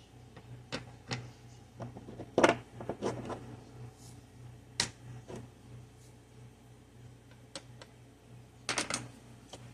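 Sanded wooden tic tac toe pieces being handled, clicking and knocking together in a scattered series of sharp taps, with the loudest cluster about two and a half seconds in and another quick run of taps near the end.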